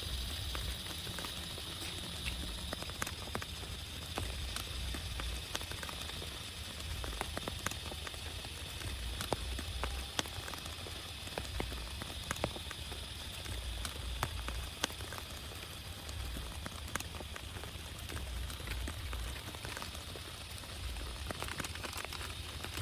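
Steady rain with many distinct drops tapping sharply on a surface, over a low, uneven rumble.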